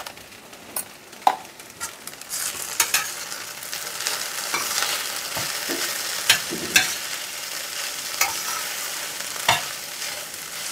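Slotted steel spatula scraping and knocking against a stainless steel pan as chopped okra and tomatoes are stirred with spices, with a sizzle of frying in a little oil that grows louder about two seconds in. Sharp clinks of the spatula on the pan come every second or two.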